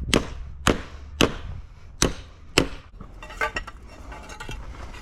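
Hammer blows on formwork pegs: five sharp strikes in the first three seconds, about half a second apart, followed by lighter knocks and clinks.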